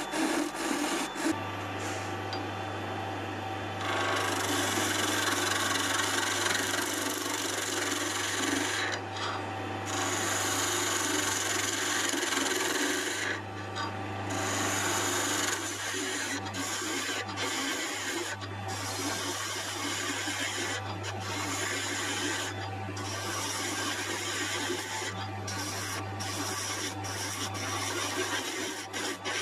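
Wood lathe running with a turning chisel cutting a spinning spindle of pale wood. The cut makes a steady hiss that drops out in many short gaps as the tool comes off the wood, over the lathe motor's steady low hum.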